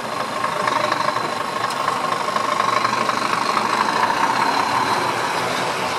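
Scania truck's diesel engine running at low speed as the tractor unit rolls slowly past, growing a little louder as it comes close.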